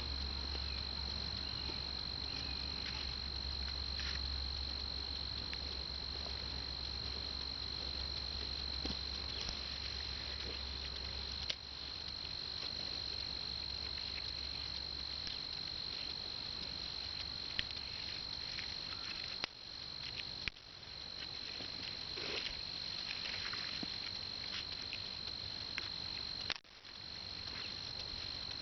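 Insects, crickets or similar, keeping up a steady high-pitched trill, with a few sharp clicks.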